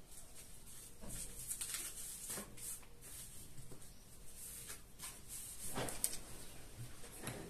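Faint, irregular rustles and scrapes of objects being handled, with a few soft knocks, the loudest about six seconds in.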